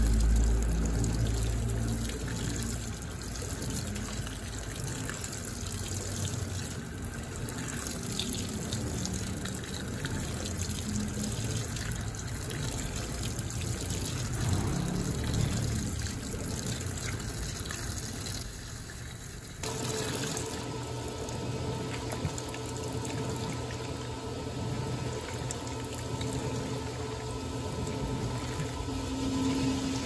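Water pouring into the tub of a Panasonic NA-FD10X1 top-load washing machine during its first fill. About two-thirds of the way in the machine's motor starts, adding a steady hum and a rhythmic swish about every two seconds as the pulsator works the load back and forth.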